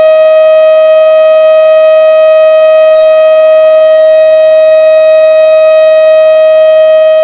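Civil defence warning siren sounding one steady, loud tone that neither rises nor falls, starting to fade right at the end.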